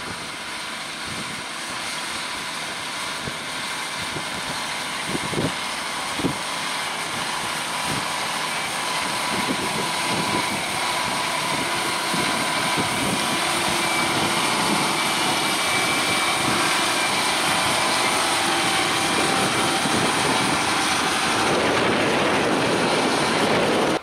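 John Deere 6250R tractor's six-cylinder diesel engine running under load as it pulls a seven-furrow plough through the soil, growing steadily louder as it approaches. Two short knocks come about five to six seconds in.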